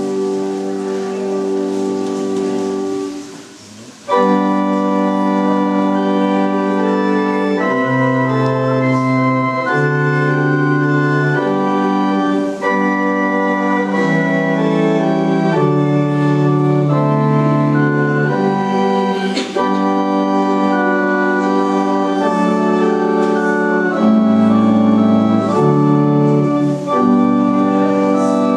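Organ playing music in sustained, slowly changing chords. It drops away briefly a few seconds in, then picks up again.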